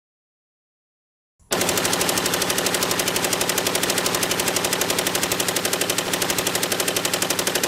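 Silence, then about one and a half seconds in a Browning M1919 .30-calibre machine gun opens fire in one long, unbroken burst of rapid, evenly spaced shots.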